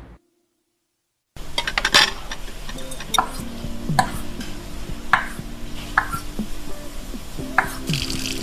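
Silent for about the first second, then a kitchen over background music: a chef's knife knocks against a plastic cutting board about once a second as carrots are sliced. Near the end a sizzle starts as oil is squeezed onto a hot griddle.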